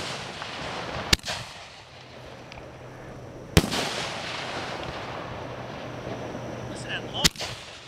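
Aerial firework shells bursting: three sharp bangs, about a second in, about three and a half seconds in and near the end, each trailing off over a second or two.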